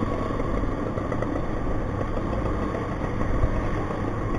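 Motor scooter's small engine running steadily at low speed in slow traffic, with road noise and the running engines of surrounding vehicles.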